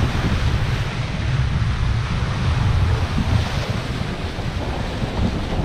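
Wind buffeting the microphone over the steady rush of sea water past a sailing catamaran under way.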